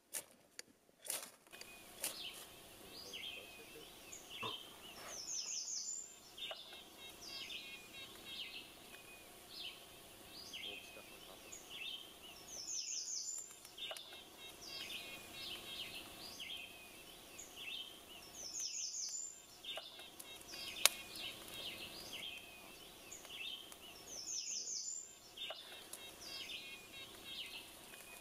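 Songbirds singing: one repeats a short song of quick, falling high notes about every six seconds, over steady chirping from other birds. A few sharp clicks sound in the first two seconds, and one near the end.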